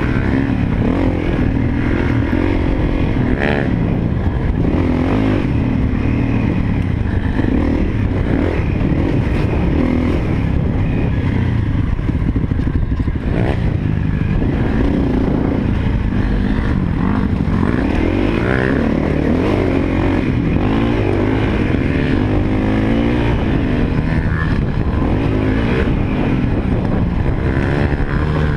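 Honda CRF250L's single-cylinder four-stroke engine running under way on a dirt trail, its revs rising and falling steadily as the rider works the throttle.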